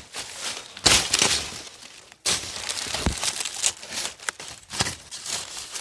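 Dry sugarcane leaves and stalks rustling and crackling as the cane is handled, with a few sharper cracks.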